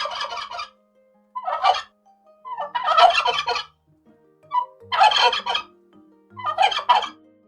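Turkey gobbling: a male turkey gives a string of rapid, rattling gobbles, five calls in all, each under a second long with short pauses between them.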